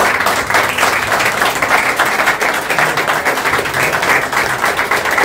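Applause: a group of people clapping steadily and densely.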